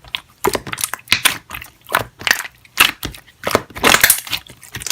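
Slime being squeezed and pressed by hand, giving a run of irregular crackles and pops.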